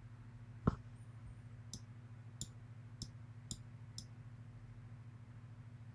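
A single dull knock, then five light, sharp clicks about half a second apart, over a steady low electrical hum.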